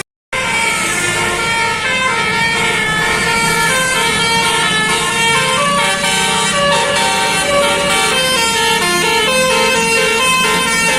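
Basuri telolet horn playing a quick tune of stepped, held notes that change pitch every fraction of a second, after a brief dropout near the start.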